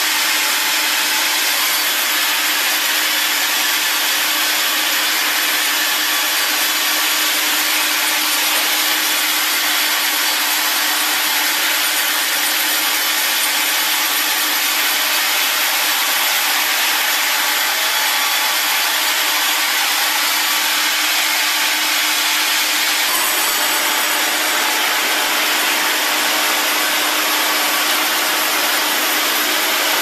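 Large band saw cutting lengthwise through a big log: a steady hiss with a constant hum underneath.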